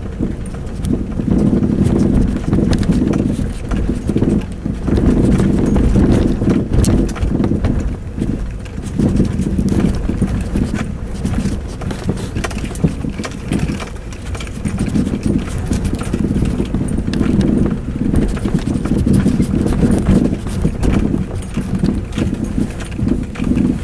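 Mazda 6 front suspension knocking again and again over road bumps while driving, over steady tyre and road rumble. The knock comes from the right front side and is still there after the strut bushing and upper ball joint were replaced; its cause has not been found.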